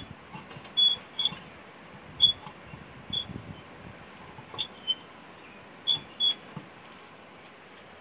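A series of short, high squeaks, about eight in all, spread over the first six seconds.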